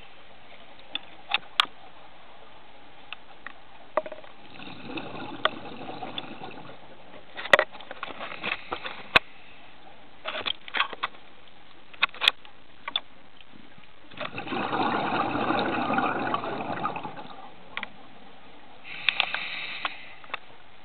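Scuba diver breathing through a regulator underwater: a hiss at each inhale and a long rush of exhaled bubbles, twice, about ten seconds apart. Sharp clicks and knocks come and go in between.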